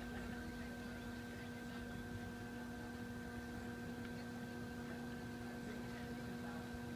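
Electric potter's wheel running with a steady, even hum while a small clay pot is thrown on it.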